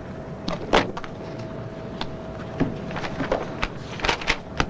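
Papers being handled on an office desk: scattered light rustles and taps, about seven of them, over a faint steady hum.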